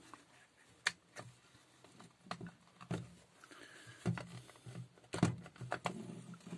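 Plastic housing of a Black & Decker cordless drill being handled and worked apart by hand: scattered clicks and knocks of the plastic parts, the sharpest about a second in and about five seconds in.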